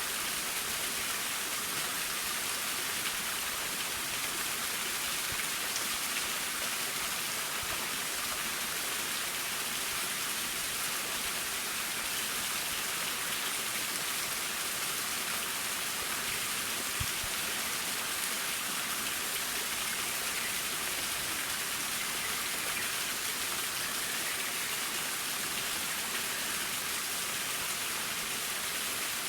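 Waterfall splashing: a steady, even hiss of falling water, brighter than deep, that never changes.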